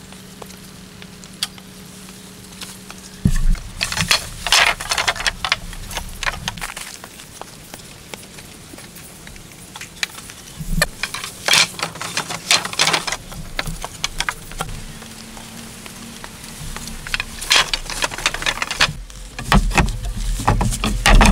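Wooden poles clacking and knocking together in irregular clusters, with rustling and scuffs, as a bundle is carried and hauled up a wooden pole ladder. Near the end come heavier, deeper wooden knocks and rubbing as logs are handled on the platform frame.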